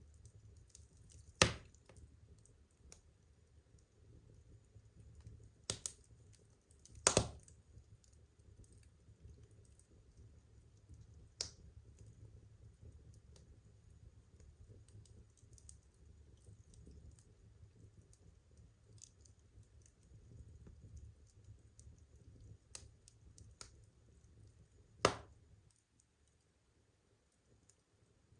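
Burning firewood crackling: a few sharp, isolated pops spread over the stretch, the loudest about a second and a half in, around seven seconds in and near the end, over a faint low rumble.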